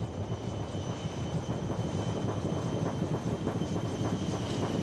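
Chinook tandem-rotor helicopter in flight: a steady, rapid rotor chop over a deep rumble, with a faint high turbine whine.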